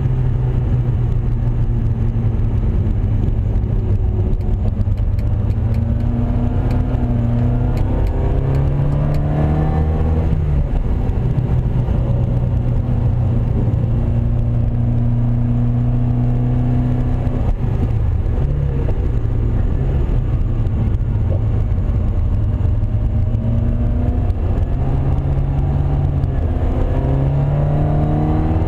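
Classic race car's engine at racing speed, heard from inside the cabin. The revs climb steadily twice, each time ending in a sharp drop, with a long stretch of steady high revs between them.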